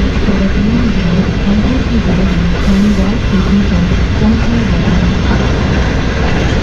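A woman's announcement over the passenger coach's public-address speakers, half drowned by the steady rumble of the moving train; it tells passengers that the next station is coming up. Her voice is not very loud.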